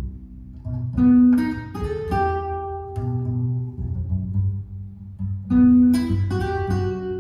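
Jazz duet of acoustic guitar and double bass: plucked guitar chords and single notes over low plucked bass notes, with a loud chord about a second in and another about two thirds of the way through.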